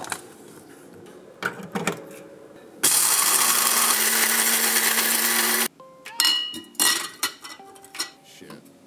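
Small electric blade coffee grinder running on whole coffee beans for about three seconds, a loud steady whir with a constant hum, cutting off abruptly. Clicks and knocks come before and after it as the grinder and pour-over gear are handled.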